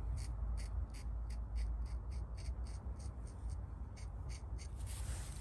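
Paint marker scratching on a steel crankshaft gear in quick short strokes, about four a second, over a low steady hum.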